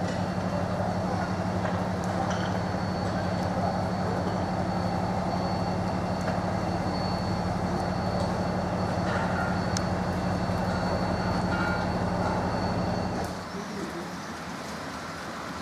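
Train noise: a steady low hum with a faint high whine, which drops away abruptly about thirteen seconds in, leaving quieter background sound.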